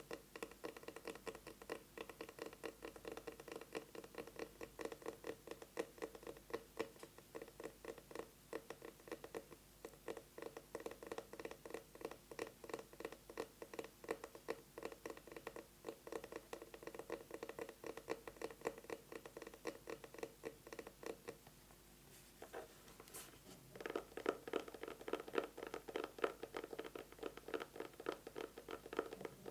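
Rapid fingernail tapping on an eyeglasses case, a dense run of quick taps. The tapping stops for about two seconds a little past two-thirds through, then resumes louder.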